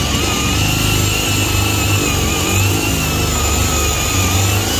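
Handheld drill boring a long bit up through wooden framing overhead, the motor running steadily under heavy load with a slightly wavering whine. Hard going: the drilling is incredibly difficult with one hand.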